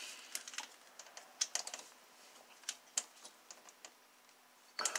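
Scattered light clicks and plastic rattles of a test light and its clip being handled and hooked onto engine-bay wiring, with most of the clicks in the first three seconds.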